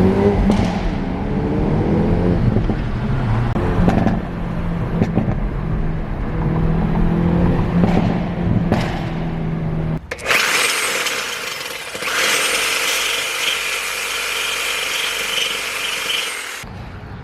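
Kia Forte GT's turbocharged 1.6-litre four-cylinder exhaust pulling through the gears, with the dual-clutch gearbox's upshift 'farts'. About ten seconds in, a power saw cutting through the steel exhaust pipe with a new blade.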